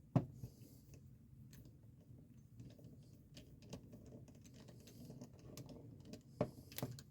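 Faint small metal clicks and taps from a T10 Torx screwdriver and the jaws of ratcheting crimping pliers being handled as the two screws holding the jaws are taken out. A sharper click comes just after the start and a cluster of clicks near the end.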